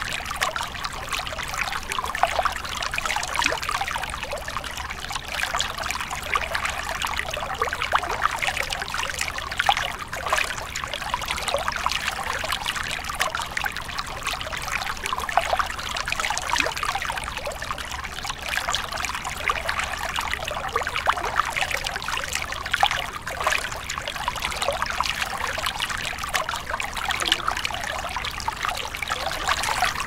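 Gentle water waves lapping at a shore: a steady run of small splashes and trickles.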